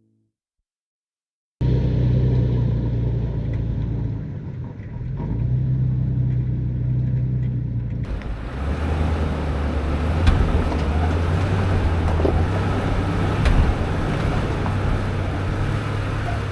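A motor vehicle driving, with a low engine hum under road and wind rumble. It cuts in about a second and a half in and steps to a louder hiss about eight seconds in.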